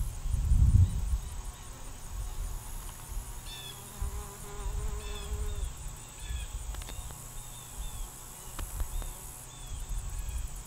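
Bumblebee buzzing on goldenrod flowers, with a steady hum for a second or so in the middle, over a high pulsing insect chorus of crickets. A low uneven rumble runs underneath and is loudest about a second in.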